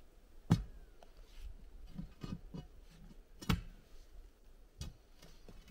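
A long-handled steel digging tool driven down into a post hole, striking and scraping the soil and stones at the bottom. The sharpest strikes come about half a second in and about three and a half seconds in, with another near the end and softer knocks in between.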